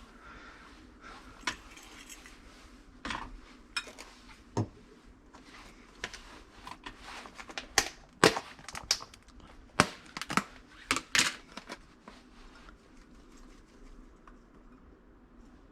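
Kitchen utensils and dishes knocking and clicking while pancakes are made: irregular sharp knocks, a few at first, bunching up in the middle, then dying away near the end.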